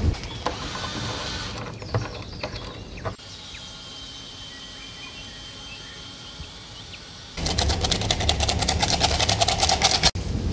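Dough being kneaded and pressed on a wooden tabletop with a few knocks, then a quieter stretch, then about three seconds of loud, fast rhythmic rattling from a metal crank flour sifter as flour is sifted over the dough.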